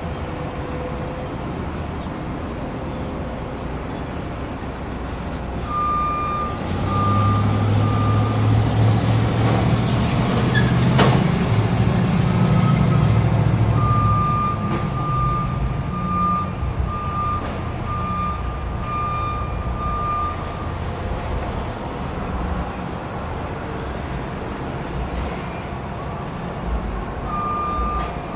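Truck reversing: its backup alarm beeps in runs at about one beep a second, over the low engine running, which swells louder from about seven to fourteen seconds in. A single sharp knock comes about eleven seconds in.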